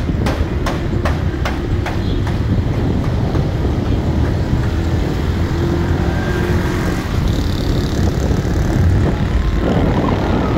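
Steady low rumble of engine and road noise from a vehicle driving along a road.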